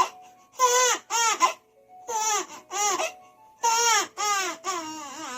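Baby wailing after being startled, in a string of about seven short, high cries with quick breaths between them.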